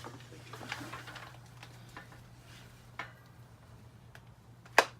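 SMC M36 ceiling fan's stamped steel motor giving a steady low hum while its speed is turned up from low toward medium on a speed control. Scattered light clicks, and one sharp, much louder click near the end.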